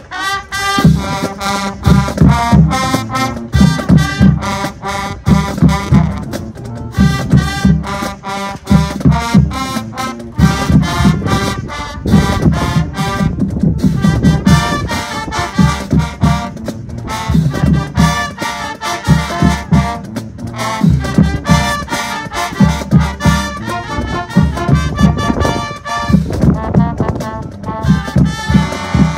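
A high school marching band playing a loud up-tempo tune: brass chords from trumpets, trombones and sousaphones over a driving drumline with heavy bass-drum hits.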